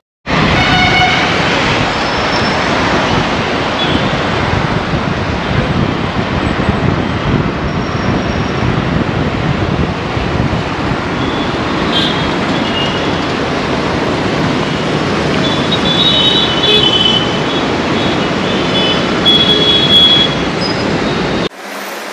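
City street traffic heard from inside a moving car: a steady rush of road and engine noise, with short high vehicle horns sounding now and then, several in a cluster about three-quarters of the way through. The traffic noise cuts off abruptly near the end.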